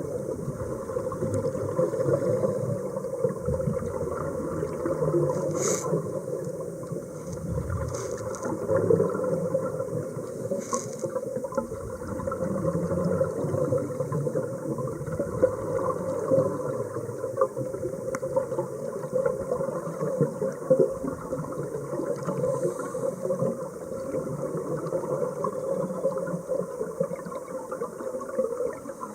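Underwater sound heard through a diving camera's housing: a continuous muffled rushing and gurgling of water, with a few brief crackling bursts in the first half.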